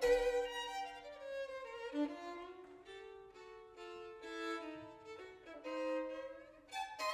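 Unaccompanied violin playing a melodic line, with some notes sliding in pitch and some passages of two notes sounded together.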